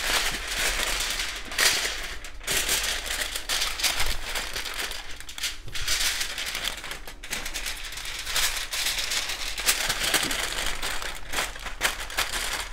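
Aluminium foil crinkling as it is folded and pressed by hand around a rack of ribs, a continuous crackle with frequent sharp snaps.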